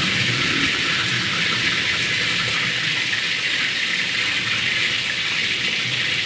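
A steady, even hiss with no pitch or rhythm, water-like in character.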